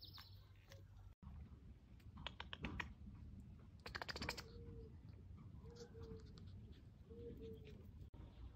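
Faint clicking in two short runs, like a small puppy's claws tapping on paving stones, followed by three faint short tones.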